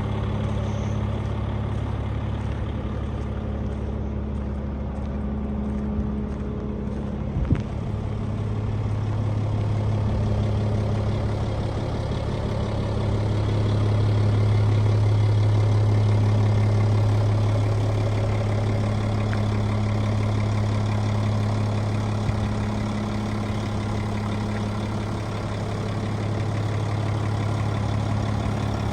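2007 American LaFrance garbage truck's diesel engine idling steadily, with a single sharp knock about seven and a half seconds in.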